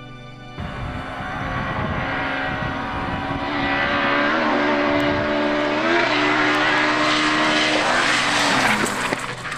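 Rally car engine at full throttle as the car approaches at speed, getting steadily louder, its note bumping up briefly twice. The pitch drops as the car goes past near the end.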